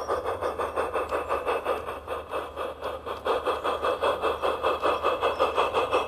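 Steam-locomotive chuffing from a garden-railway Thomas the Tank Engine model, a steady even beat of about five chuffs a second over a low hum, growing a little louder about halfway through as the engine comes closer.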